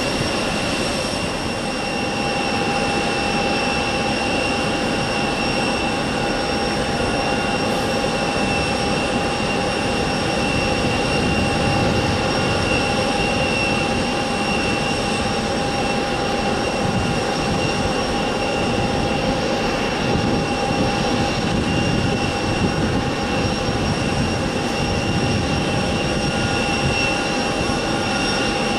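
Boeing 767-300ER's twin turbofan engines running as the airliner taxis, a steady whine of several high tones over a broad rumble.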